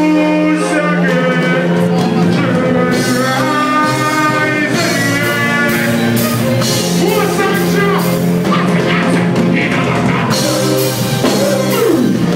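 Live band music with held instrument chords and a voice singing over it.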